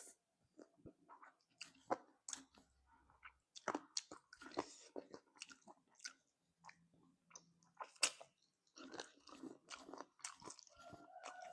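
Close-up mouth sounds of eating spicy chicken feet: irregular smacks, bites and crunches as they are chewed.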